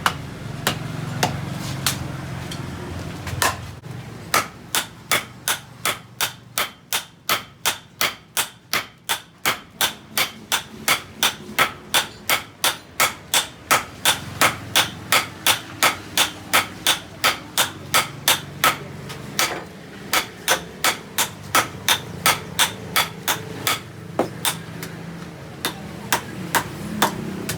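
Hammer blows on steel being forged into a cleaver blade: a few scattered strikes, then a long, steady run of ringing metal-on-metal hits at about three a second.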